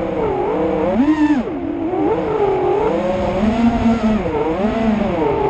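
Racing drone's electric motors whining, the pitch constantly rising and falling with the throttle, over a haze of wind noise.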